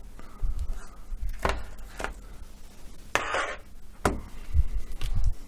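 Handling noise from laptop parts: a few sharp clicks and low knocks with a short scrape about three seconds in, as the display unit is worked loose from the laptop's base.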